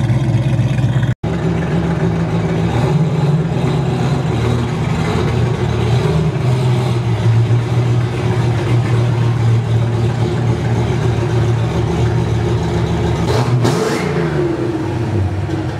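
Foxbody Mustang's engine running steadily through a short side-exit exhaust, with a brief rev and drop back near the end.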